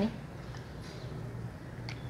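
Quiet background with a steady low hum and faint room noise; no distinct event stands out.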